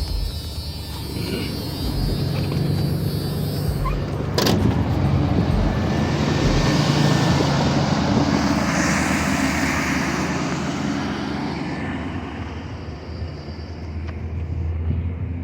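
A van's engine left idling, with a vehicle passing by that swells and fades in the middle. A single sharp knock about four seconds in.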